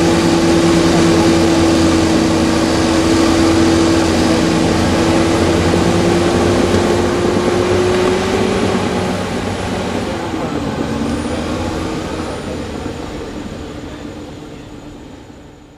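Heavy diesel engine running steadily with a strong whine over its rumble, fading away over the second half.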